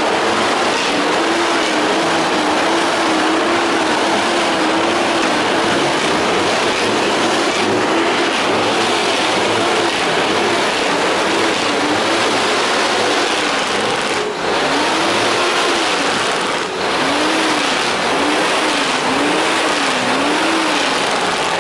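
Loud, continuous noise of truck engines at a truck show. Over it a siren-like tone warbles up and down about once a second, again and again.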